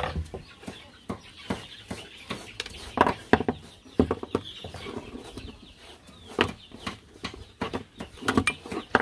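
A plastic lamp holder being handled and an incandescent bulb screwed into it, giving a string of sharp clicks and knocks, the loudest about three seconds in. Chickens cluck in the background.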